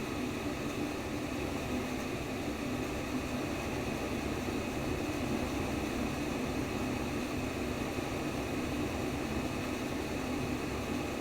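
Steady white noise for baby sleep: an even, unchanging hiss with a low hum running through it.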